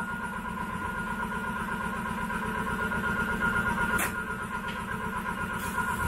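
Shop air compressor running steadily, a continuous hum with a fast low throb, while a tire is aired up through a hose. A sharp click about four seconds in.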